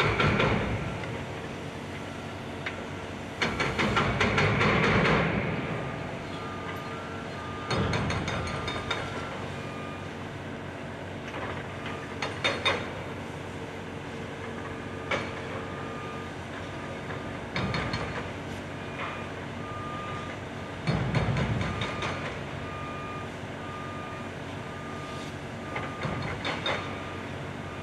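Heavy construction machinery running steadily with several loud surges, and a reversing alarm beeping evenly through the second half.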